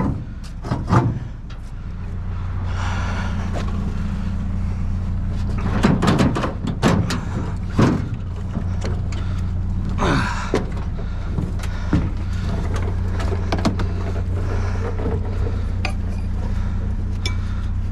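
A vehicle driving: a steady low engine and road drone, with scattered knocks and clicks over it and a cluster of sharp knocks near the start.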